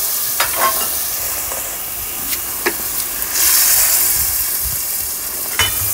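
Sardines in kudampuli (Malabar tamarind) water sizzling in a hot clay pot, a steady hiss that swells louder for about a second midway. A few light clicks sound through it.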